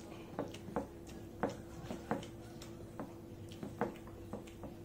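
Eating a rice meal by hand: wet, sticky clicks and squelches from fingers working rice and curry on a plate and from the mouth chewing, about a dozen at irregular intervals. A steady low hum runs underneath.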